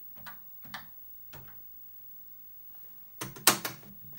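Three light keystrokes on a Commodore PET 2001's chiclet keyboard, then, a little after three seconds in, a quick cluster of louder mechanical clunks from the piano-style keys of an external Commodore datasette being pressed.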